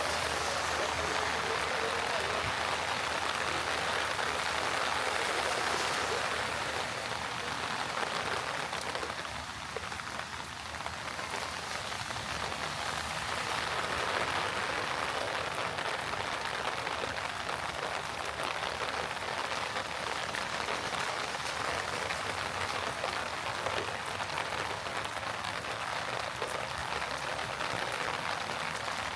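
Heavy rain pouring down onto the street, a steady dense hiss that softens briefly about ten seconds in.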